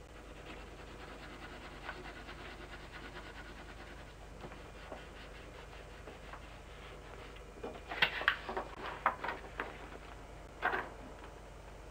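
A pencil scratching over paper in quick, repeated shading strokes. About eight seconds in comes a cluster of sharp knocks and clicks, and another single knock near the end.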